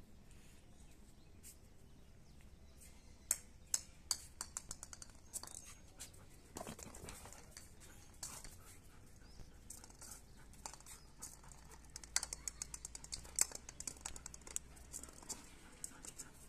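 Dog's claws clicking and scuffing on a concrete floor as it moves around a ball, in irregular runs of sharp ticks, with a brief rustle a little before seven seconds.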